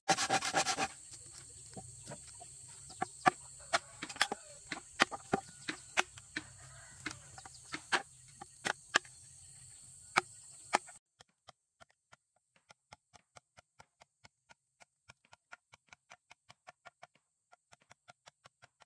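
A machete blade knocking into bamboo as the culm is chopped and split, in a string of sharp, irregular strikes with a quick flurry at the start. About eleven seconds in, the strokes become lighter, evenly spaced taps at two or three a second.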